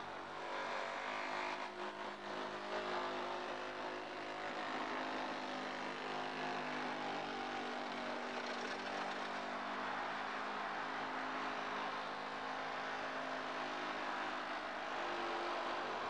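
Powered rescue cutting equipment running steadily while cutting through a car's roof pillar: an even engine-like drone with a rough hiss above it, without let-up.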